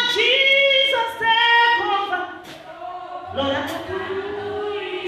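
A woman singing unaccompanied in a high register, holding long notes and sliding between them, with a drop in loudness about halfway through.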